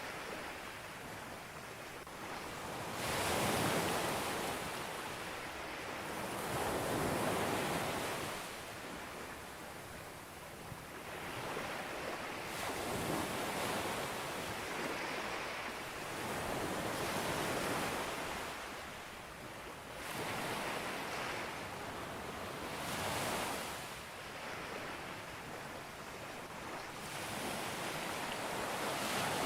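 Ocean waves breaking on a beach, the rush of surf swelling and easing about every three to four seconds.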